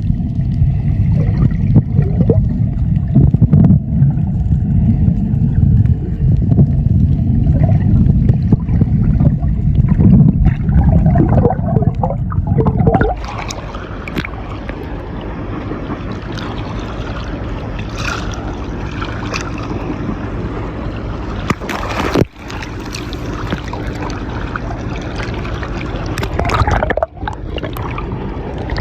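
Dive boat under way: a loud low rumble of the motor and water rushing against the hull, which drops suddenly about halfway through to a quieter steady wash of water with a couple of knocks.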